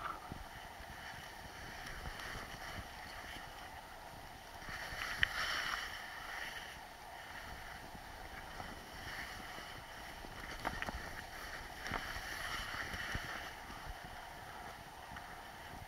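Skis hissing and scraping over packed snow as a skier runs down a groomed piste, swelling louder in a couple of turns, with wind noise on the microphone and a few sharp clicks.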